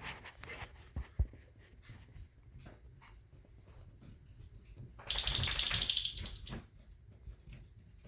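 Domestic cat chattering at a bird: scattered soft clicks, then a loud burst of rapid, noisy chatter about five seconds in lasting around a second and a half, a sign of the cat's excitement at prey.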